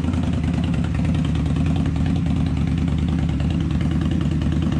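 Indian Scout motorcycle's V-twin engine idling steadily.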